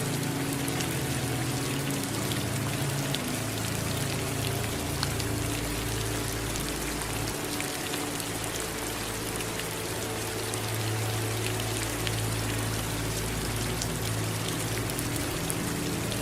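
Steady rain falling, a dense even hiss sprinkled with the ticks of single drops, over a low rumble underneath.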